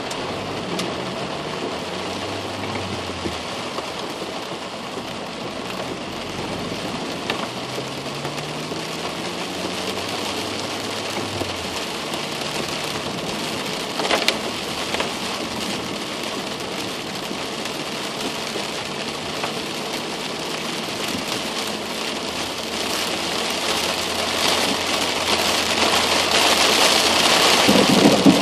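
Heavy rain beating on a car's windshield and roof, heard from inside the cabin, with a low engine hum underneath that rises for a few seconds and then holds steady. A short sharp sound comes about halfway through, and the rain grows louder near the end.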